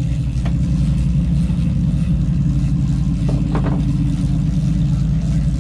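Sportfishing boat's engines running steadily under way, a loud, even, low drone with a fine rapid pulse.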